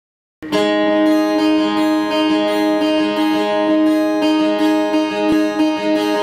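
Acoustic guitar strummed live, with a steady rhythm of strokes over a ringing chord, starting about half a second in.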